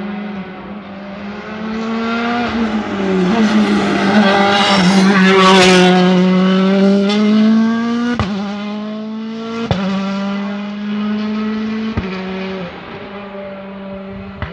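Rally car engine passing close through a hairpin at racing speed. Its pitch falls and rises and it is loudest a few seconds in, then it fades as the car pulls away, with three sharp cracks about a second and a half apart.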